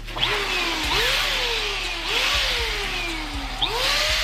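Electric balloon pump running, blowing air into a large foil balloon held to its nozzle. Its whine jumps up in pitch and then sags slowly, four times over, under a steady rush of air.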